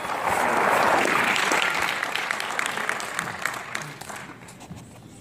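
Audience applauding: a dense patter of clapping that swells about a second in, then gradually dies away, with a few single claps standing out as it thins.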